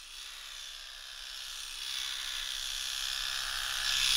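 Recorded electric razor buzzing steadily, rendered in 3D audio and growing steadily louder as its virtual distance is brought closer.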